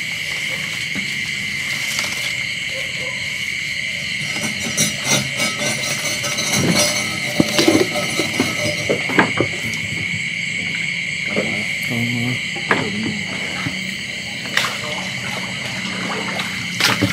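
Steady chorus of night insects, with a scattering of short knocks and rustles from about four to ten seconds in.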